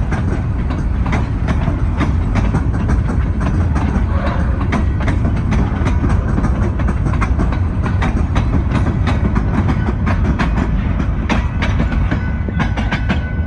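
Freight train cars rolling past at close range: a steady heavy rumble with irregular sharp clicks of wheels over rail joints. A high steady squeal joins near the end.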